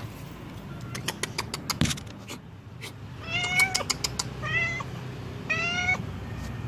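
Orange tabby mother cat meowing three times in short calls, the first the longest, as if calling her owner to follow her to her kittens. A quick run of clicks and taps comes before the meows.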